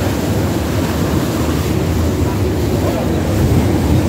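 Steady wind blowing across the microphone on the open deck of a moving boat, over the rush of water past the hull.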